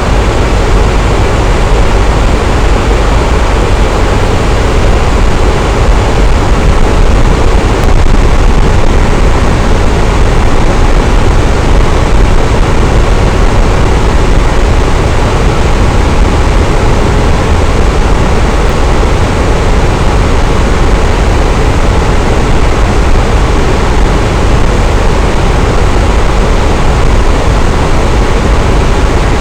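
Electric fan running steadily: a continuous, even whoosh of moving air with a deep low hum and no changes.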